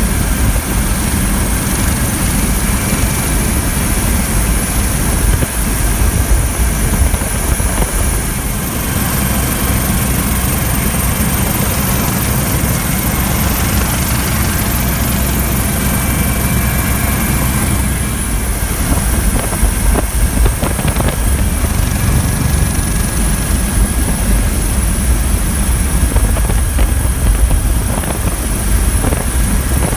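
Coast Guard MH-65 Dolphin helicopter in flight, heard from aboard: steady rotor and turbine noise with a constant high whine.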